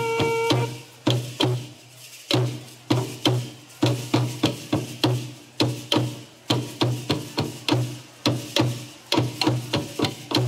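Drum beaten in a steady dance rhythm, two to three strokes a second, each stroke a deep thump with a sharp, wood-like click. A held wind-instrument note ends about half a second in.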